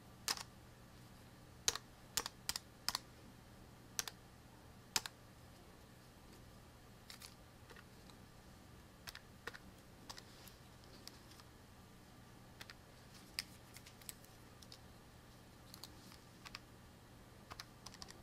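Keys pressed one at a time in short, sharp clicks, in irregular clusters with pauses between, as numbers are keyed in to work out a calculation. A faint low hum runs underneath.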